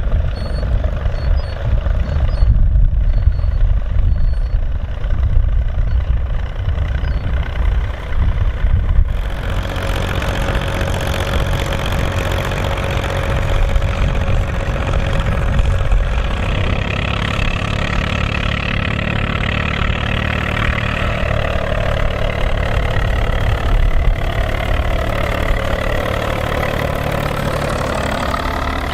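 Volvo BM farm tractor diesel engines running under load while ploughing. A fuller engine sound comes in about nine seconds in, and near the end the engine pitch rises and falls as a tractor passes.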